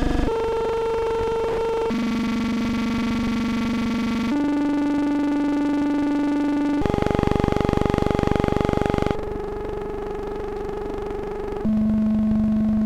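Synthetic optical sound: drawn shapes printed on a 1930s film's optical soundtrack (circles, scallops, diamonds), played back as a series of about six steady, buzzy tones. Each tone is held about two seconds and then jumps abruptly to a new pitch, moving between higher and lower notes. The tone about seven seconds in carries a heavy low buzz.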